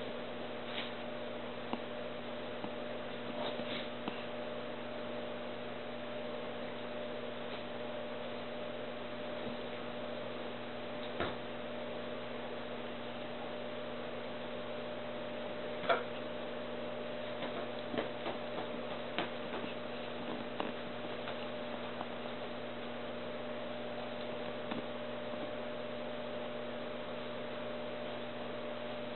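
Steady electrical hum with scattered faint taps and clicks, a sharper one about halfway through, from a puppy's paws and claws on a leather sofa.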